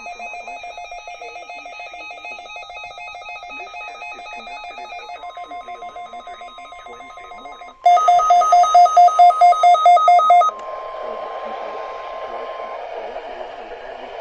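NOAA Weather Radio alert tones during a required weekly test, heard through a radio receiver. A warbling electronic tone runs for about eight seconds. About five seconds in, a steady 1050 Hz warning alarm tone joins it. Then come nearly three seconds of loud, rapid beeping, about four or five a second, and after that a hissy broadcast.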